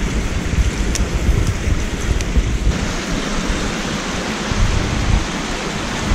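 Mountain stream rushing over rocks, with a campfire crackling in short sharp pops during the first couple of seconds. Under it runs a steady low rumble. A few seconds in, the sound changes to a fuller, even rush of water.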